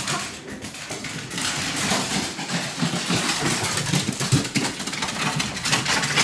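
Dogs growling in rough play, a rough, uneven low rumble, with many quick clicks and scrabbles from paws on a wooden floor.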